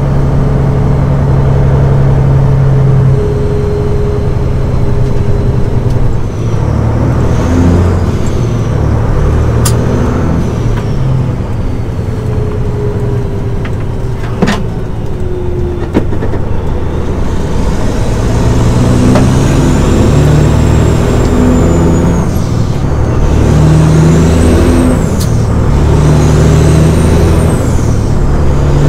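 Caterpillar 6NZ inline-six diesel with a straight pipe and a stage 1 turbo, heard from inside the semi truck's cab as it pulls through the gears. The engine note climbs and drops with each shift, and in the last third a turbo whistle rises and falls with every pull.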